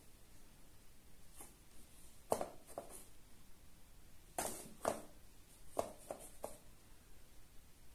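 A cat pawing at a cardboard box toy with holes, making light, irregular taps and knocks on the cardboard. The strongest taps come about two and a half seconds in and a cluster around four and a half to five seconds in.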